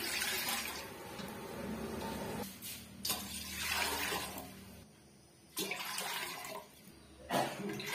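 Water poured from a steel cup into a metal cooking pot, splashing onto the bottom in several separate pours with short pauses between them.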